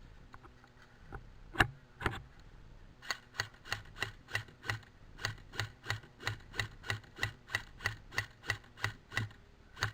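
Helmet-mounted camera rattling in its mount: two louder knocks, then from about three seconds in a steady clicking of about three ticks a second.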